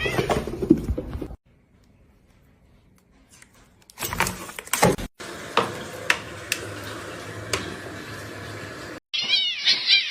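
Domestic cat meowing, in several short clips cut together with a gap of silence; near the end, a quick run of high, repeated mews.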